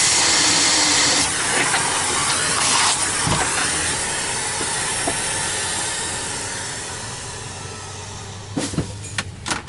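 Miele vacuum cleaner running with a freshly serviced STB 205 turbo brush nozzle: a loud, steady rush of air and whirr that dies away over the second half, then a few clicks near the end.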